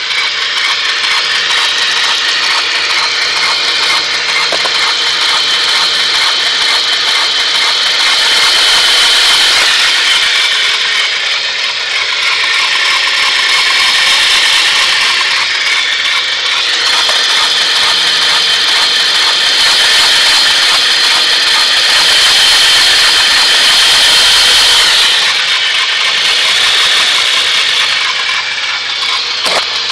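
Honda Civic EK3 engine running with an abnormal, loud rubbing noise from the belt area. It is an internal friction sound from something the belts drive, not a squealing belt. The noise grows louder twice, for a couple of seconds near a third of the way in and again for several seconds past the middle.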